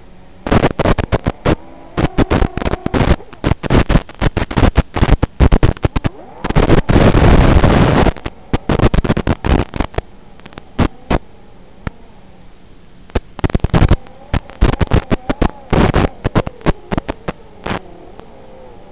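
Crackling bursts of static over a steady hum and hiss from an analog FPV video link's audio channel, the sign of the signal breaking up. One longer unbroken burst of static, about a second and a half long, comes in the middle.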